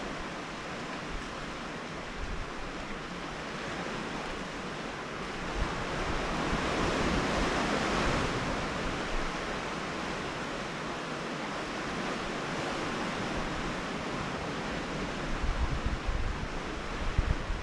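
Sea surf washing against a rocky shore as a steady rush that swells to a peak about halfway through. Gusts of wind buffet the microphone near the end.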